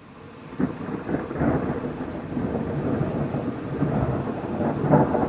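Thunder from a lightning strike about 3 km away, arriving some 9 seconds after the flash: a rolling rumble that swells up, with sharper, louder cracks about half a second in and again near the end.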